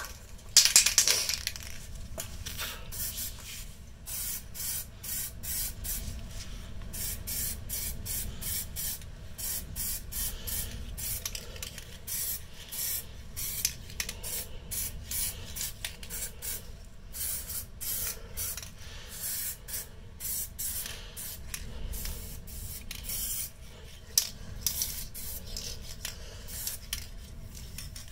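Aerosol spray can of gold paint hissing in many short bursts, the longest and loudest about a second in.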